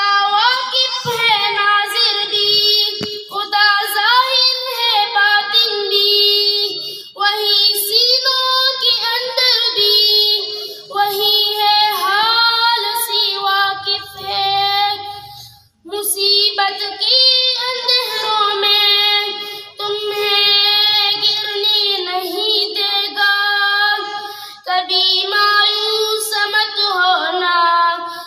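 A boy singing solo into a microphone, unaccompanied, in long sung phrases with brief pauses for breath.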